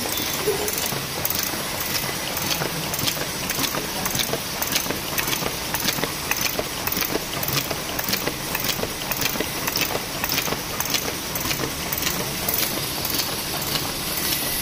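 Automatic box folding machine running: a steady mechanical clatter of chain conveyors and guides, with a sharp regular click about twice a second.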